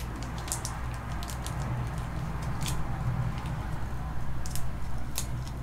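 Scattered light clicks and rustles of trading cards and their packaging being handled, over a steady low hum.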